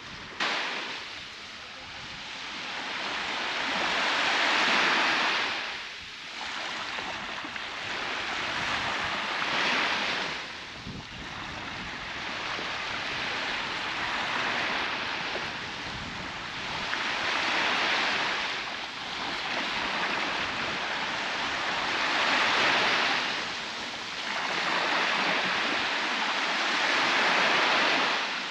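Baltic Sea waves breaking and washing onto a sandy beach, a steady surf that swells louder and ebbs again every few seconds.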